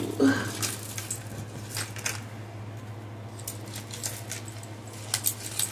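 Plastic bead strands clicking and rattling as they are handled and cut with scissors: a scattering of short, light clicks, with a steady low hum underneath.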